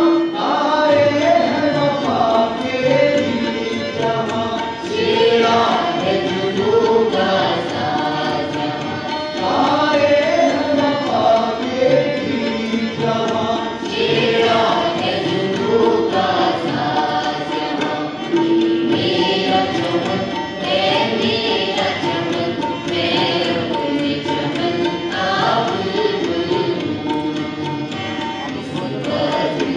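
Music: a voice singing with wavering, gliding pitch over drum accompaniment.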